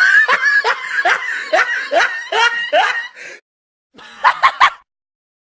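A person's high-pitched laugh: a quick run of about nine "ha" syllables, each dropping in pitch, then after a short pause three brief, sharp laughs.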